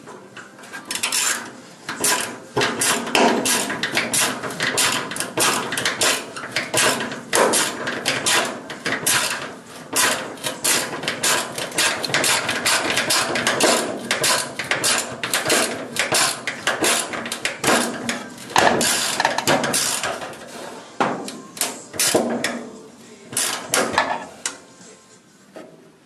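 Driver turning a screw into the sheet-metal rear floor flange of a VW bus: a dense, irregular run of metallic clicks and knocks that thins out near the end.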